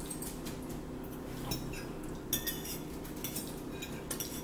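Forks clinking and scraping lightly on dinner plates as two people eat, a few sharp clicks over a faint steady low hum.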